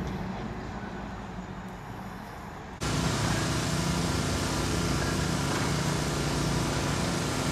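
Road traffic rumbling by, then a sudden cut nearly three seconds in to a louder, steady mechanical hum with several held tones over a broad hiss.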